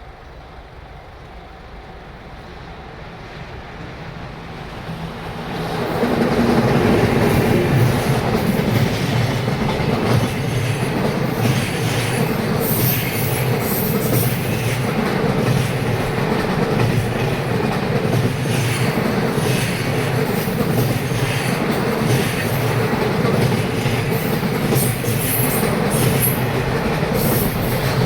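A freight train hauled by an EF210 electric locomotive passing at speed. The sound builds over the first six seconds or so as it approaches, then holds as a loud, steady rumble with a rapid clatter of wheels over the rail joints.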